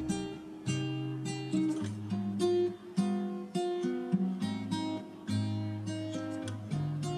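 Background music: an acoustic guitar playing a melody of separately picked notes.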